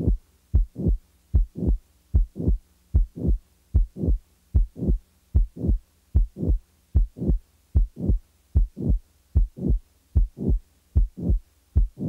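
Heart sounds beating in a steady rhythm: the first and second heart sounds with a late systolic murmur just before each second sound, with no mid-systolic click. This is the murmur of mitral regurgitation typical of mitral valve prolapse.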